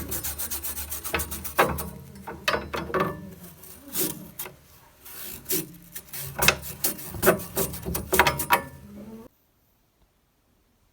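Rapid rubbing and scraping strokes with sharp clicks: a refrigerator's compressor and cooling fan being scrubbed clean of dust. The strokes ease off for a moment in the middle, pick up again, and cut off suddenly about nine seconds in.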